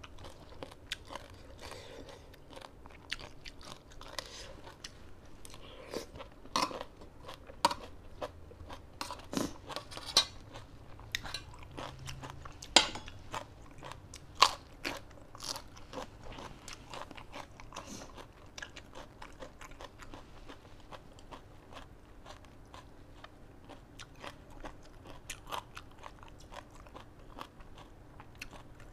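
Close-miked chewing and crunching of pounded salad and raw vegetables: a run of irregular crunches, with several sharper, louder bites about a third of the way in and again around the middle.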